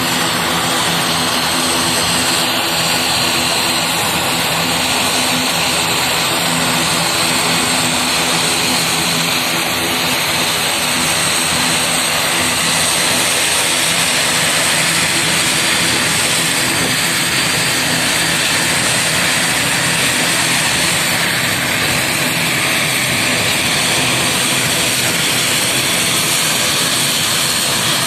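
Aircraft engines running steadily at an airport, a continuous engine noise with a high steady whine over it.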